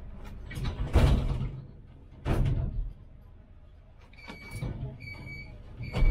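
Tram passenger doors at a stop: two loud surges of door noise about one and two seconds in. Then the door-closing warning beeps three times, and a further loud door movement starts near the end.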